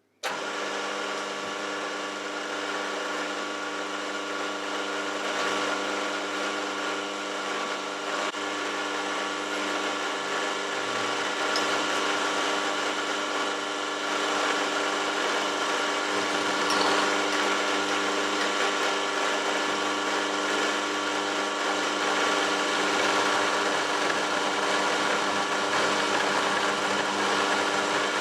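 Warco Super Major milling machine running steadily, its 12 mm carbide cutter milling a flat on a mild steel bar: an even machine hum with a fixed set of tones.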